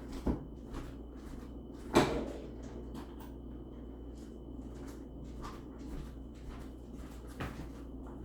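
Household knocks and clicks as someone fetches a pair of scissors, with one loud bang about two seconds in.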